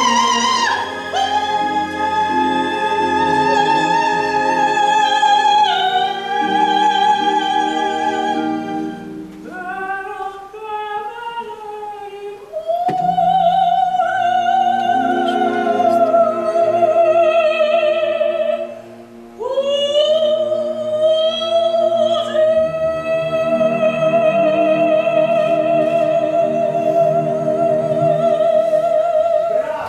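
Soprano singing an opera aria with vibrato over an orchestra, in long held phrases with short breaks between them, ending on a high note held for about seven seconds.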